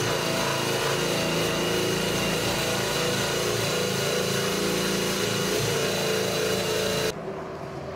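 Drill spinning a rubber decal eraser wheel against a fiberglass hull, rubbing off old decals and their glue: a steady motor whine with grinding, which stops suddenly about seven seconds in.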